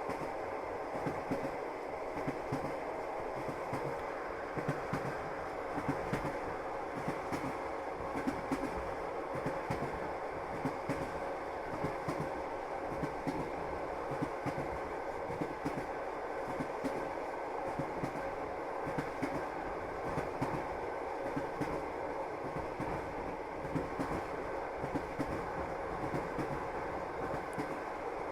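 Train running along the track: a steady rumble with the wheels clicking over rail joints, heard from inside a passenger carriage.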